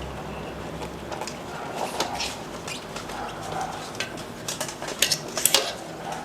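Handling noise of a bicycle inner tube being tucked into the tyre on the rim: rubber rubbing and scattered light clicks and taps, with a quick run of sharper clicks about five seconds in.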